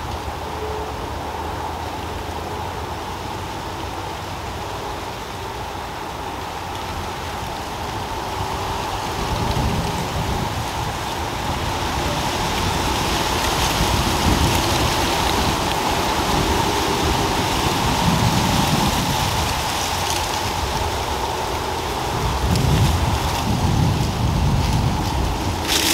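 Steady rushing noise like wind through the trees, growing louder about ten seconds in, with uneven low gusts buffeting the microphone.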